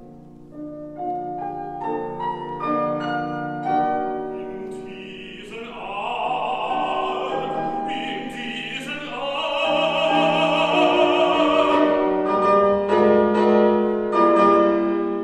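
Art song for baritone and grand piano: the piano plays alone at first, then a man's voice enters about five seconds in, singing long notes with wide vibrato over the accompaniment, and near the end the piano carries on with only brief vocal phrases.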